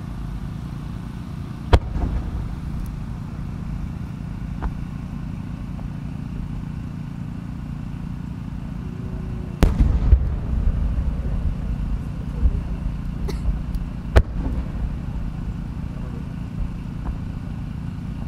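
10-inch (shakudama) firework shells: a sharp launch bang about two seconds in, then near the middle the shell bursts with a loud deep boom followed by a scatter of smaller pops, and another sharp launch bang comes about two-thirds of the way through, over a steady low rumble.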